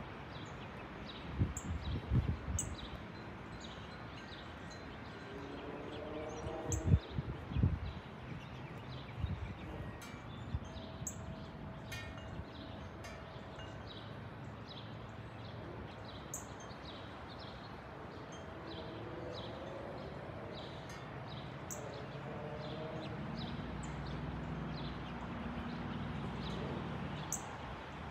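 Small birds chirping, short high falling chirps repeated throughout, over a low steady rumble that swells near the end. A few low thumps come in the first eight seconds.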